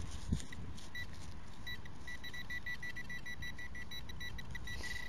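Handheld metal-detecting pinpointer beeping over a dig hole. It gives a few scattered beeps at first, then about five quick beeps a second, running together into one steady tone near the end as the tip closes on buried metal. A soft thump comes just after the start.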